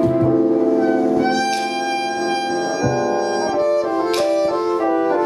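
Live instrumental groove at a sound check: a sustained melody of held notes that moves into quicker notes, over two cymbal crashes.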